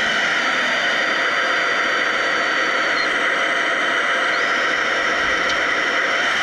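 RC Hidromek 640WL wheel loader's hydraulics and electric drive running, a steady mechanical whir with a high whine that steps up and down in pitch a few times as the log grapple lowers the poles onto the truck's trailer.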